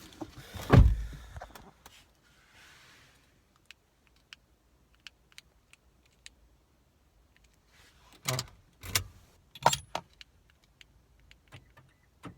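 A Toyota Corolla's car door slamming shut about a second in, followed by faint small clicks and then three sharp clunks about eight, nine and ten seconds in, typical of the car's door locks working as the newly programmed remote is tested.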